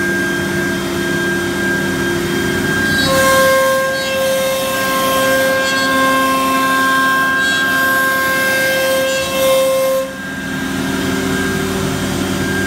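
Techno HD CNC router's spindle running with its bit cutting a wood panel, with dust extraction drawing through the hose at the cutter head. It is a steady, loud machine whine with several held tones. The tones shift about three seconds in, and the level dips around ten seconds in as the cut changes.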